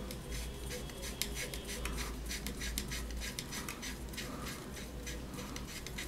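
Plastic and metal fittings of an electric instant water heater tap being twisted together by hand: a steady run of small clicks and rubbing from the threads being screwed home.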